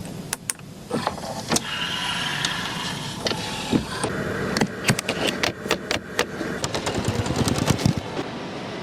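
A rapid run of sharp clicks and knocks over a steady mechanical hum, with a brief electric whirr about two seconds in: a Bentley Flying Spur's controls and powered fittings being worked.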